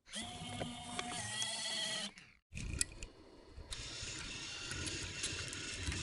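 Camera mechanism sound effects: a small motor whirring for about two seconds, then, after a brief silence, a click and a longer, noisier whirring with scattered small clicks.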